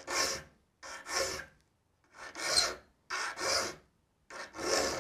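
A saw file being drawn across handsaw teeth, five rasping strokes about a second apart, each with a short lead-in scrape before the main stroke.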